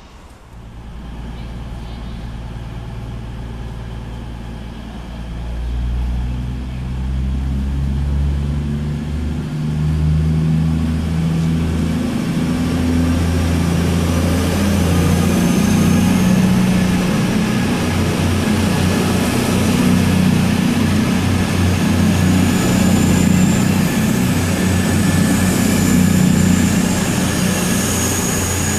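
CrossCountry Voyager diesel multiple unit pulling out of the station, its underfloor diesel engines revving up in steps and getting louder. A high thin whistle sits over the engines in the second half.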